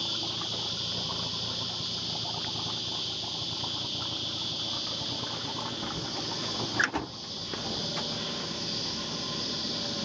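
Small boat's outboard motor running at idle under a steady high hiss, with one loud thump about seven seconds in as a foot lands on the aluminium boat while stepping aboard.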